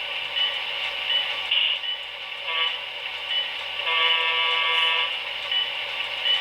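HO scale model passenger train pulling out, its running noise steady throughout. Over it sound two horn blasts, a short one about two and a half seconds in and a longer one about four seconds in.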